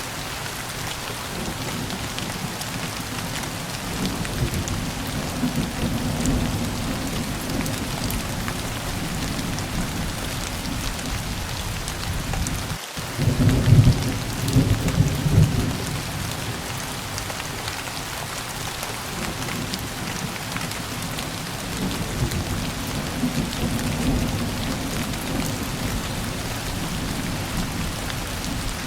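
Steady rain hissing throughout, with low rolling thunder swelling up three times. The loudest rumble comes about halfway through, just after a momentary dropout in the sound.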